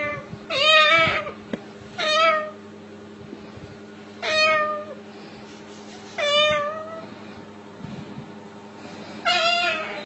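A white cockatoo imitating a cat, giving five meows roughly two seconds apart.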